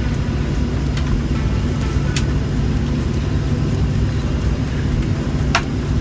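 Airliner cabin noise: a steady low rumble from the engines and air system, with two faint clicks.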